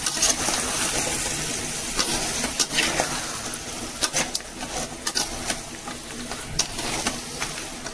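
Pre-cooked mutton pieces frying and sizzling with onions and tomatoes in a metal kadai as they are stirred with a metal slotted spoon. The spoon scrapes and clicks against the pan now and then over the steady sizzle.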